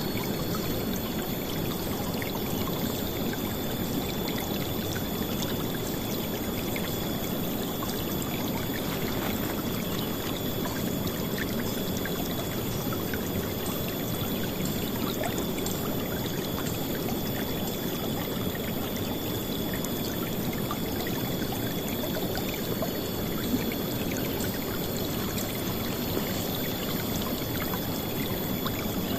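River water flowing and splashing steadily, a loud, unbroken rush.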